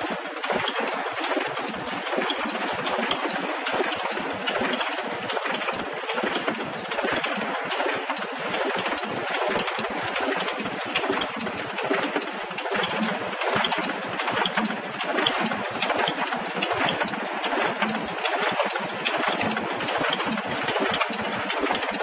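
Automatic bottle-feeding carton packing machine running: a steady, dense clatter of rapid clicks and knocks from its moving parts.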